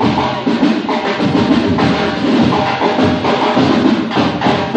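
Loud music driven by drums and percussion, going steadily without a break.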